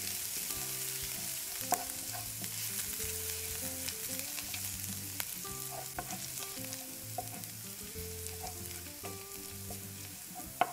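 Chopped ginger and garlic sizzling in hot oil in a nonstick pan while being stirred with a wooden spatula, which knocks sharply against the pan three times, loudest near the end. This is the aromatics being tempered in the oil.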